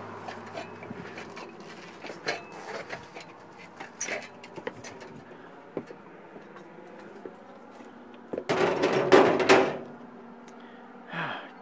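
Light knocks and footsteps of someone climbing down an aluminium ladder and stepping onto a wooden deck, with a louder burst of clattering handling noise about three quarters of the way through.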